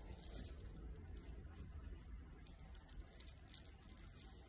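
Quiet room with a faint low hum and scattered faint rustles and light ticks.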